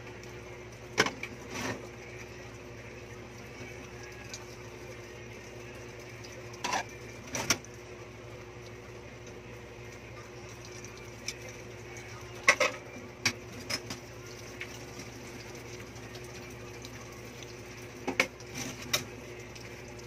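Dishes and utensils clinking and knocking against each other and the stainless steel sink during hand dishwashing: sharp clatters in short clusters every few seconds, over a steady faint hum.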